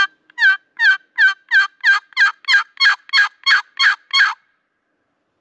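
Wooden turkey box call run through a series of about thirteen hen yelps, about three a second, each note breaking from high to low, imitating a hen turkey to draw in gobblers; the run stops about four seconds in.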